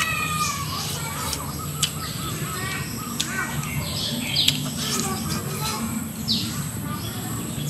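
Birds chirping and calling, with scattered sharp clicks and smacks from eating.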